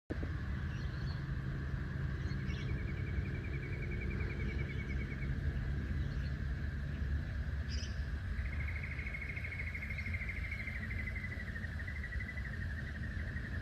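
Birds calling outdoors: two long, rapid trills, the second starting about two-thirds of the way in, and a few short high chirps, over a steady high-pitched drone and a low rumble.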